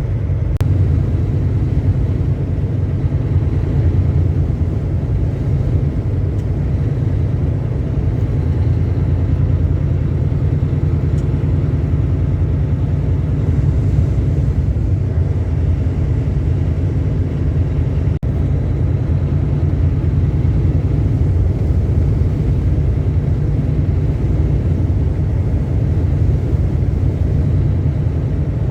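Semi truck driving at low speed, heard from inside the cab: a steady low rumble of diesel engine and road noise.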